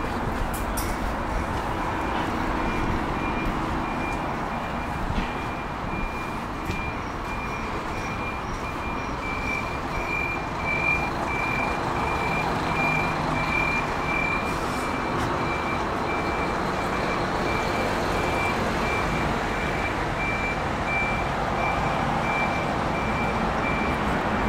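A vehicle's reversing alarm beeping at an even rate, about two beeps a second, loudest around the middle, over a steady background rumble of traffic.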